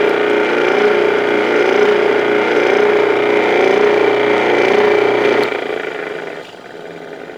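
InSinkErator garbage disposal motor running after being repaired and reassembled, a steady hum that sounds pretty good. About five seconds in it cuts off and fades as it spins down.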